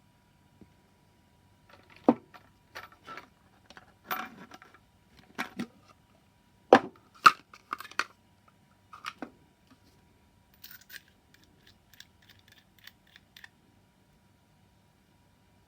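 Irregular hard clicks and knocks of brass cases and a hand reloading tool being handled. The sharpest knock is about two seconds in and two more come close together in the middle, followed by a run of lighter clinks.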